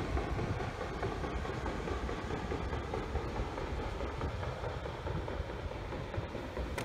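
Paddle wheels of the paddle steamer Waverley churning the water as she steams past, a steady low rumbling wash.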